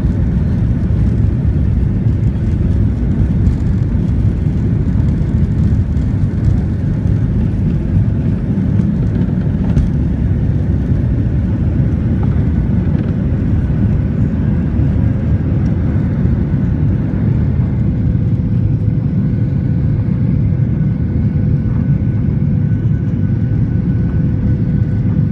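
Inside the cabin of an American Airlines Boeing 737 on its takeoff run: the CFM56 turbofans at takeoff thrust over a loud, steady rumble, carrying on through lift-off. The runway knocks fade, and a steady engine tone comes up over the second half.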